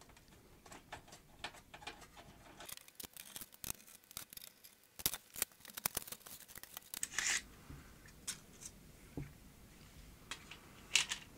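Light clicks, taps and short scrapes of plastic and metal parts being handled as the minidisc deck mechanism is worked loose and lifted out of the mini hi-fi's chassis. There is a cluster of sharper clicks about halfway through, a brief scrape soon after and one more sharp click near the end.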